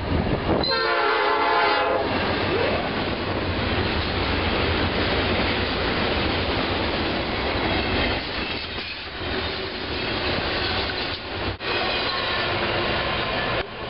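A freight locomotive's air horn gives one short blast about a second in. Then a double-stack container freight train passes close by, with the steady noise of its wheels and cars.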